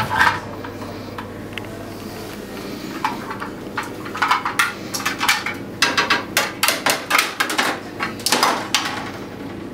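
Metal glasswasher wash and rinse arms knocking and clinking against a stainless-steel counter as they are set down one after another, a quick run of sharp knocks from about three seconds in.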